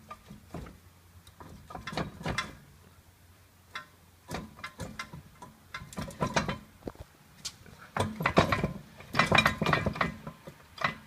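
A jacked-up 2007 Ford Fusion's wheel being rocked by hand, clicking and clunking in irregular bursts as it shifts on its mounting. The bursts are loudest and come fastest near the end. The play is the sign of a worn wheel bearing or steering knuckle, or both.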